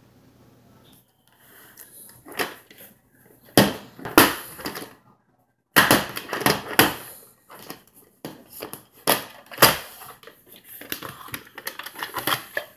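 VHS tapes in plastic cases being handled on a wooden table: irregular knocks, clacks and rustling as the cases are picked up, shuffled and set down, with several sharper knocks in the middle.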